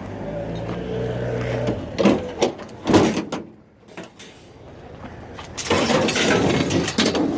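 Scrap metal being dumped out of a truck: a steady low hum at first, then three sharp metal knocks in quick succession, and after a short lull a longer clattering, scraping rush of junk sliding out.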